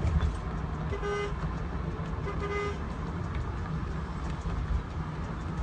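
Two short car horn toots, about a second in and again just over a second later, over the steady low rumble of a car driving.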